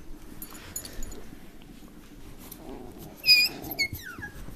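Alaskan Klee Kai puppy giving a sharp, high-pitched yelp a little over three seconds in, then a short falling whine: the cry of a puppy being bitten by a littermate in rough play.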